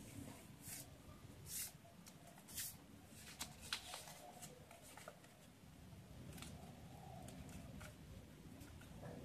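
A sheet of origami paper rustling and crinkling as it is handled and creased by hand, in short crisp rustles, several in the first few seconds.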